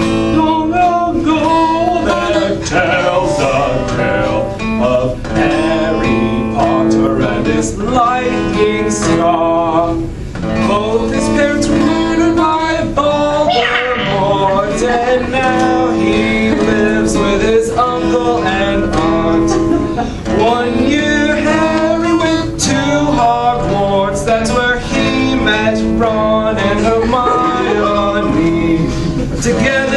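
A song with a male voice singing over guitar.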